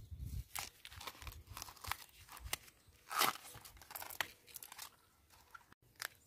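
Outer sheaths being cut and stripped off a fresh young bamboo shoot with a large knife: a series of irregular short scraping and tearing sounds, the loudest about three seconds in.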